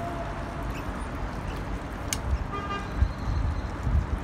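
A stainless steel serving spoon scoops stew from a Saladmaster stainless steel skillet, with one sharp clink about two seconds in, over a steady low rumble. A brief high tone, like a distant horn toot, sounds about two and a half seconds in.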